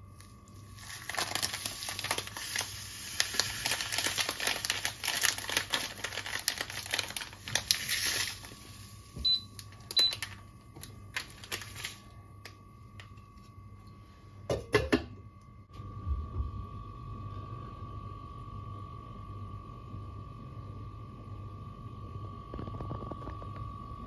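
A plastic packet of citric acid crinkling as it is handled and opened for several seconds. Then two short high beeps from the glass electric kettle's touch panel, a few clicks and a knock. From about two-thirds of the way in comes a steady low rumble with a faint hum as the kettle heats the water.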